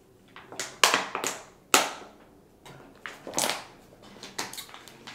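Thin plastic water bottle crinkling and clicking as it is drunk from and handled: a string of sharp crackles, the two loudest about a second apart.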